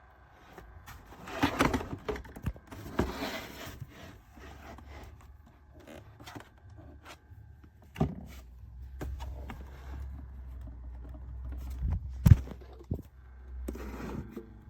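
Objects being handled and set down: irregular knocks and scrapes, with the sharpest knock about twelve seconds in, over a low steady hum.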